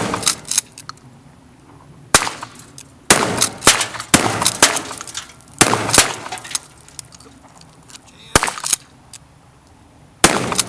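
Gunshots fired irregularly at a washing machine, about a dozen sharp cracks with some in quick succession, by two shooters emptying their guns.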